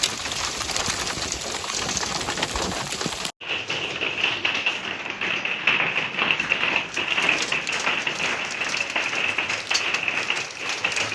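Heavy rain and hail hitting hard surfaces, a dense rattle of impacts. An abrupt cut about three seconds in switches to another recording with many sharp taps of hailstones over a steady hiss.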